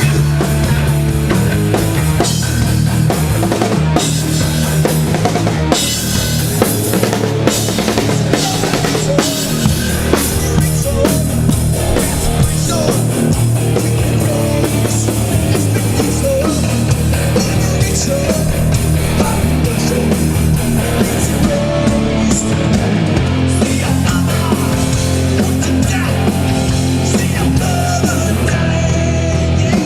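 Heavy metal band playing an instrumental passage at a sound check: a drum kit pounding kick and snare over sustained electric guitar and bass, with no vocals.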